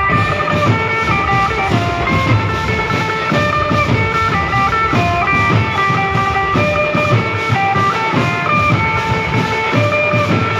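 Loud music: a melody of held notes stepping between pitches over a steady drum beat.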